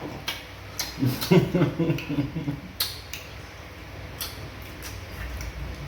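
Scattered sharp clicks and lip smacks of someone eating fufu with banga soup, with a brief stretch of low voice from about one second in.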